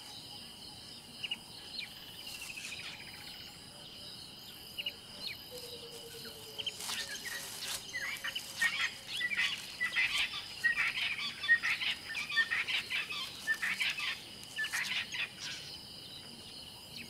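Natural bush ambience: a steady high insect trill throughout, with many short bird chirps that grow busy about seven seconds in.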